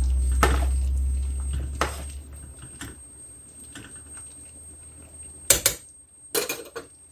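A spoon clinking against a ceramic bowl as soup is served: a few light clinks, then two louder clatters near the end. A low hum fades out over the first couple of seconds.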